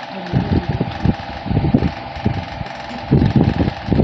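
Electric fan running: a steady motor hum with air gusting unevenly on the microphone as low rumbling, heavier near the end.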